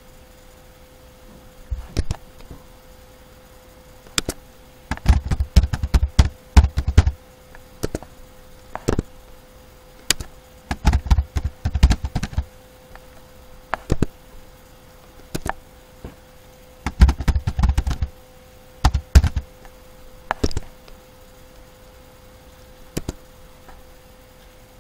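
Computer keyboard typing in three short bursts, with single mouse clicks between them, over a faint steady hum.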